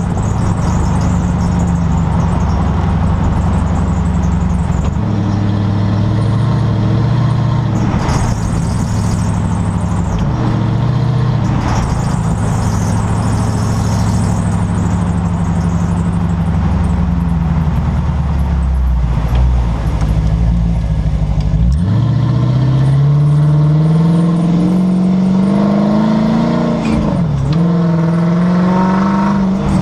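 Rear end of a 2011 Dodge Charger on the move, heard right at the rear suspension: road and driveline noise with a steady pitched squeal. Late on the pitch dips sharply twice and climbs steadily in between. The squeal has spread from around 60 mph to all speeds, and the owner fears a rear-end part is close to failing.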